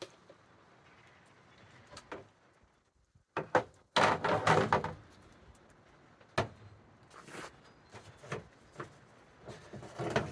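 Handling and setting hand clamps and parts during a glue-up: scattered knocks, with a dense burst of clatter about four seconds in.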